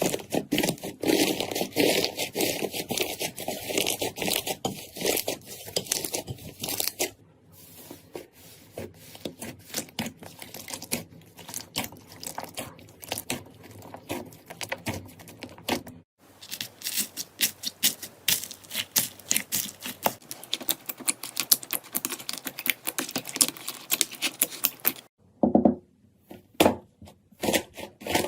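Slime being squeezed, stretched and poked by hand, giving dense crackling and popping clicks. It comes in several short clips that change abruptly about a quarter, a half and near the end of the way through.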